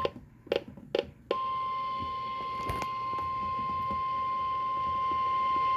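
Emergency Alert System attention signal: one steady, unbroken electronic tone, the single-tone alert that the National Weather Service sounds before a warning. It starts about a second and a half in, after a few short clicks, and holds without wavering.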